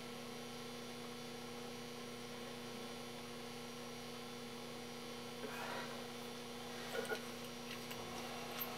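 Steady electrical hum, with a few faint handling rustles and two small clicks about seven seconds in.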